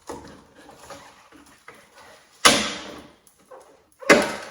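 Plastic rear light cluster of a Porsche Boxster 986 being pulled out of the body: quiet handling noises, then two loud sudden knocks, about two and a half and four seconds in, each dying away within about half a second.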